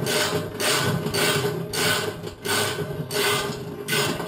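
Socket ratchet backing off a washer tub-mounting bolt nut: about seven short ratcheting strokes, roughly one every two-thirds of a second, each a rasping click of the pawl.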